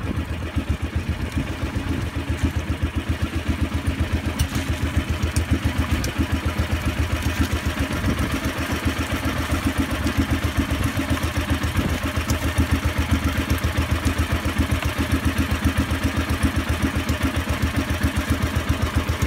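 Small fishing boat's engine running steadily under way, a rapid even pulsing, with water splashing along the hull.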